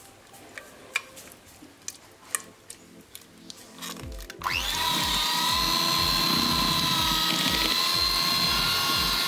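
Light clicks and taps of a spoon scraping a glass blender jug, then about four seconds in an electric hand mixer starts with a quick rising whine and runs steadily, beating strawberry-yogurt purée into cooked custard cream in a plastic bowl.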